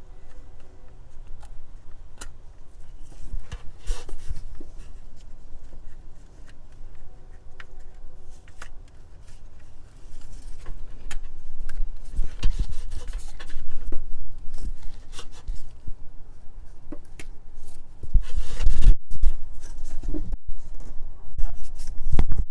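Rubbing, scraping and small clicks of hands and tools working in a car's engine bay. The sounds are scattered and irregular, with louder rumbling bumps about two-thirds of the way in and again near the end.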